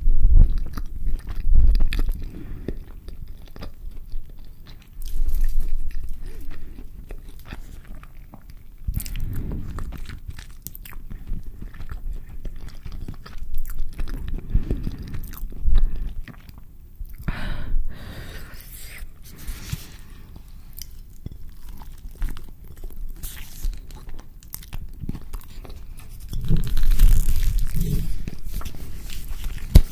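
Close-miked chewing of a carne asada burrito, in bursts with pauses between them. Near the end, paper crinkling as the wrapped burrito is handled.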